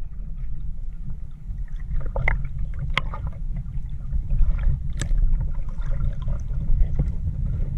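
Muffled underwater rumble picked up by a camera held below the sea surface, with a few sharp clicks and knocks scattered through it.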